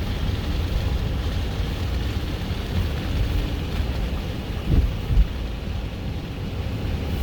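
Steady low rumble of a car driving, heard from inside the cabin: tyre and engine noise. Two short low thumps come a little under five seconds in.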